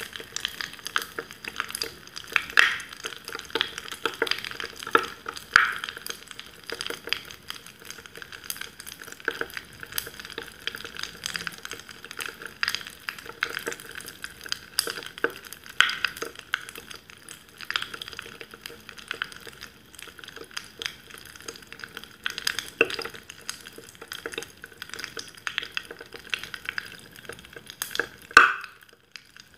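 Fizzy liquid in a glass mug, close up: a dense, irregular crackle of tiny bubbles popping at the surface. There is a sharper burst of crackle near the end.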